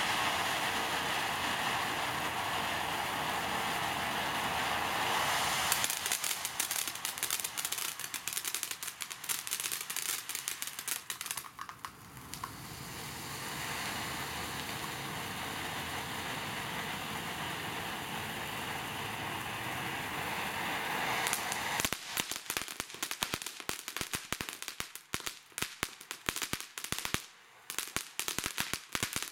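TNT Fireworks 'Unglued' fountain burning: a steady rushing hiss of sparks, broken twice by dense crackling, from about six to twelve seconds in and again from about twenty-two seconds, the second crackle thinning out near the end.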